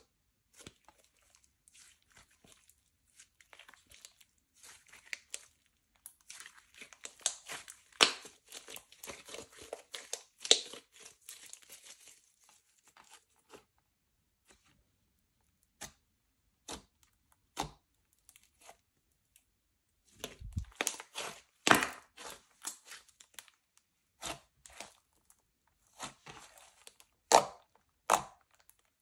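Slime being worked by hand, giving clusters of small crackles and sticky pops. The crackles are densest in the first half, thin out, then come back in two later bursts, with a few louder pops near the end.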